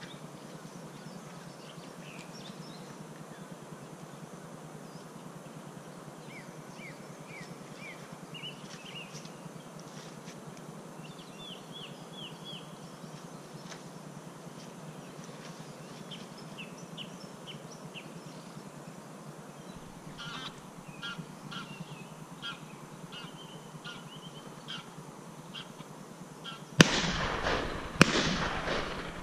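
Faint steady outdoor hiss with runs of short, high, falling bird calls. Near the end, two sharp bangs just over a second apart, shots from a Browning A5 12-gauge semi-automatic shotgun, each followed by a loud rush of noise.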